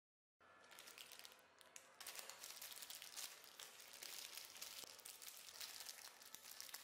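Very faint crinkling of a plastic-wrapped Lotus Biscoff biscuit packet being handled and opened, starting about two seconds in.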